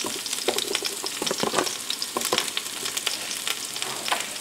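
Red onion rings sizzling in hot olive oil in the pot of an electric multi-cooker: a steady hiss with many crackling pops.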